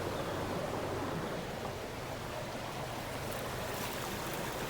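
Creek water flowing steadily over its bed, an even rushing sound close by.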